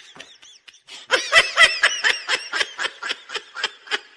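A person laughing: a quiet snicker, then a steady run of quick, breathy laugh pulses, about four or five a second, from about a second in.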